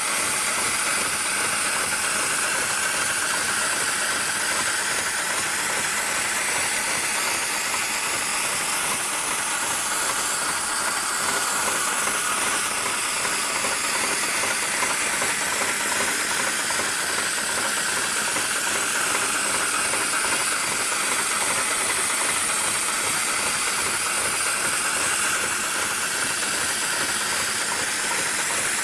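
GLK911 programmable heavy-duty sewing machine running continuously, a steady hiss over a fast, even texture of machine noise.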